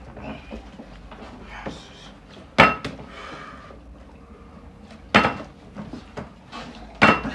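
Small plastic water bottle with some water in it, flipped and landing on a tabletop: three sharp knocks about two and a half seconds apart.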